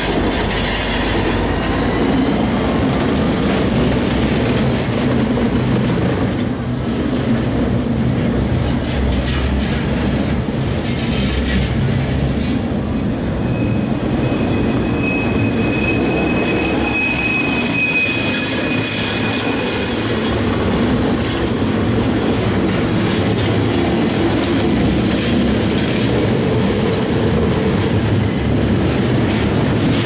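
CSX freight train passing at close range: loaded container flatcars roll by with steady wheel noise. The wheels squeal in thin high tones, one gliding down in pitch about six seconds in and another held steady from about 13 to 20 seconds.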